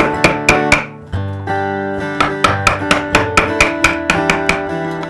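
Background music on acoustic guitar: plucked notes in a steady rhythm.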